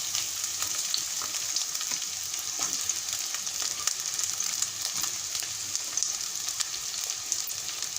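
Sliced bitter gourd rounds going into hot mustard oil in a kadhai and frying: a steady high sizzle with scattered small crackles.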